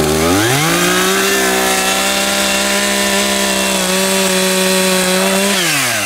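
ECHO two-stroke chainsaw revving up to full throttle within about a second and holding steady speed as the chain cuts through a pair of work pants into the log beneath, then dropping back toward idle near the end. The engine does not bog: the fabric neither stops nor slows the chain.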